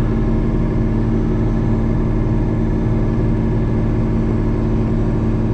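Tractor engine running steadily under load, powering a manure spreader whose floor is on clean-out to empty the last of the manure.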